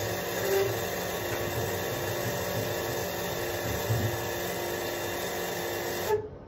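Steady machinery hum carrying several fixed tones under a background hiss, cutting off abruptly near the end.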